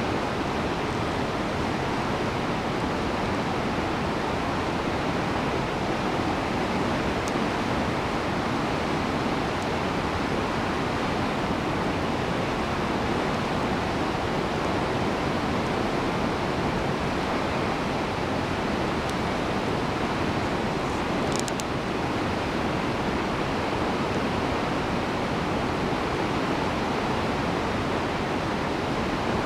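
A waterfall: the steady rush of falling water, unchanging throughout.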